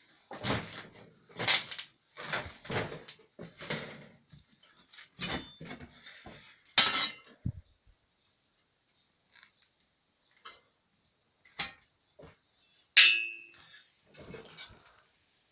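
Steel parts of a homemade cold-forging bending machine clanking and clinking as they are handled, about a dozen separate knocks, several ringing. The loudest clangs come about 7 s and 13 s in.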